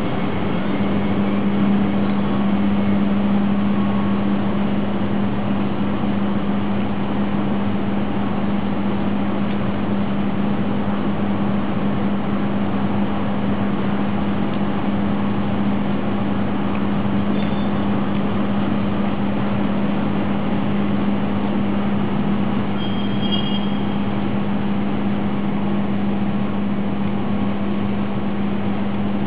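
Freight train of empty flat wagons rolling past, a steady rumble of wheels on rail with a constant hum.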